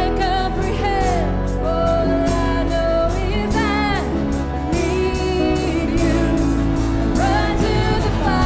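Live worship music: a band playing a slow Christian song with singing over sustained chords and a steady bass.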